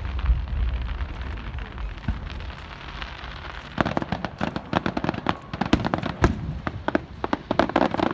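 Fireworks going off: a low rumble at first, then from about halfway a dense run of sharp crackling pops.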